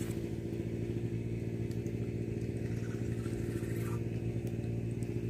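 An engine running steadily at an even pitch, with a low hum.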